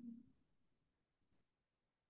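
Near silence: faint room tone, after a held note fades out in the first fraction of a second.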